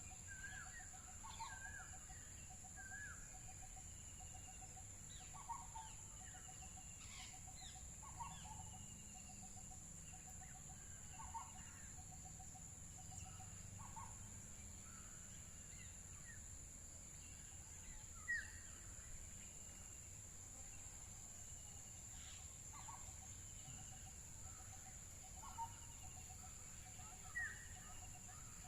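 Wild birds calling faintly in short, repeated chirps every second or two, with a fast, even pulsing note running underneath, over a steady high-pitched drone and a low background rumble.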